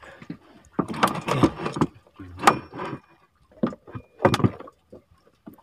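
Irregular knocks and scrapes against the wooden planking of a small fishing boat, in four short bunches.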